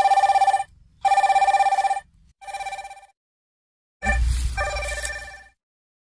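A basic keypad mobile phone ringing: an electronic ring tone repeating in short bursts of about a second, four times, with a low thump at the start of the last one. The ringing stops about a second before the end.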